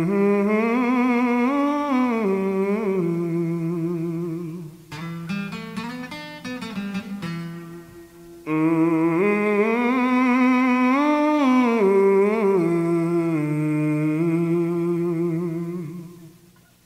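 Background music: a wordless melody line with vibrato in two long phrases, with acoustic guitar plucking in the gap between them.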